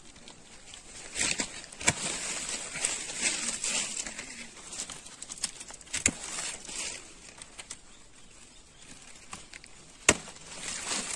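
Hand pruning shears cutting the extra shoots off a young mahogany sapling: three sharp snips of the blades, about four seconds apart, with leaves rustling between them.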